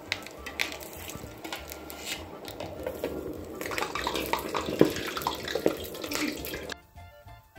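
Hot oil sizzling and bubbling hard as yuca fritters deep-fry, a dense crackle of small pops. It grows louder and busier about halfway through, then cuts off suddenly near the end.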